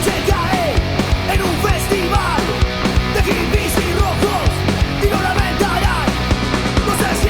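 Oi! punk rock song playing loud and steady: full band with drums keeping a regular beat.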